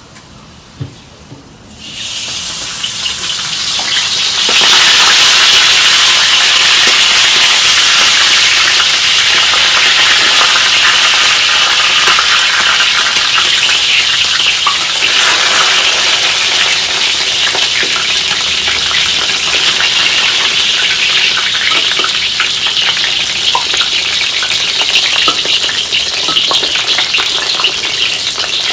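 Whole raw chicken sizzling in hot oil in a wok with fried smashed ginger. The sizzle starts about two seconds in as the chicken goes into the oil, swells to a loud, steady frying hiss by about five seconds, and keeps going with small spitting crackles.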